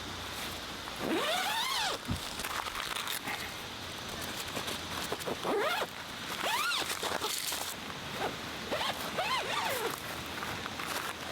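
Four short animal calls, each rising then falling in pitch, over a steady hiss with some crunching steps.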